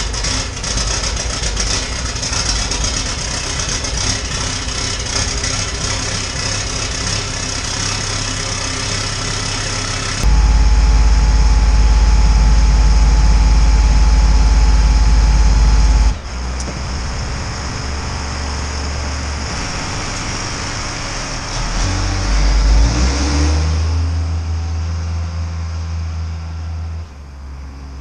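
LMTV military truck's diesel engine idling, smoking white at first as it warms from a cold start. About ten seconds in it goes much louder and steady for about six seconds, drops back, then rises again as the truck pulls away and fades near the end.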